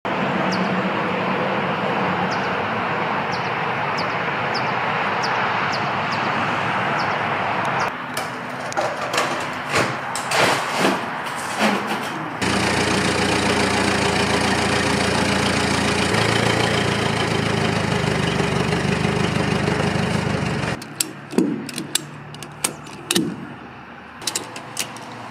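Work sounds in several cuts: a steady rushing noise, then a string of knocks and clicks, then an engine running steadily for about eight seconds, then sharp clicks of a ratchet strap being tightened.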